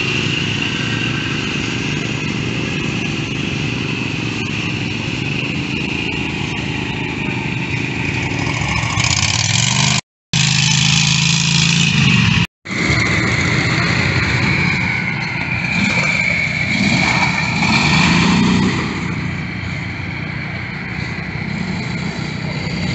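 Small engines of mud-bogging lawn tractors and ATVs running together, the pitch rising and falling as the throttle changes while a mower churns through muddy water. The sound cuts out completely twice, briefly, near the middle.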